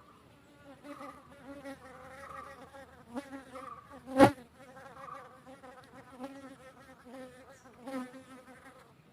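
Honey bee buzzing in flight, a wavering wingbeat hum that swells and fades as it moves about near the microphone. A sharp click about four seconds in is the loudest sound.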